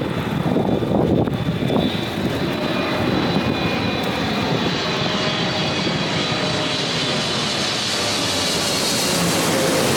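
Jet airliner on landing approach passing close by: a loud, steady engine rush with a high whine, its tones sliding slowly lower toward the end as it goes past. Wind buffets the microphone in the first couple of seconds.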